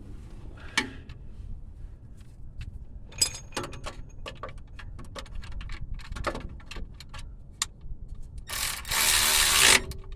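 Scattered clicks and clinks of hand tools and a socket on metal. Near the end, a power impact gun runs in one loud burst of about a second, tightening a motor mount bolt as far as it will go.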